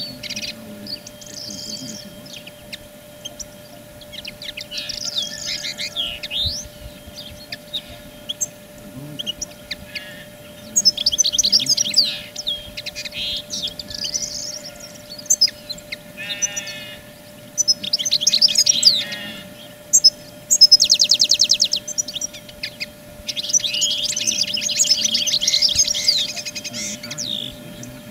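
Small songbirds singing: a series of rapid, high twittering phrases lasting one to three seconds each, with short pauses between, the longest and loudest stretch coming near the end.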